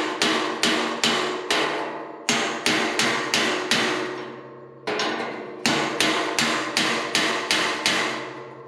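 Hammer blows on a body dolly wedged between the bars of a Farmall M tractor's sheet-metal grill, driving it through to straighten and re-form the bars. Sharp metallic strikes about three a second, each ringing briefly, in runs of four to seven with short pauses between.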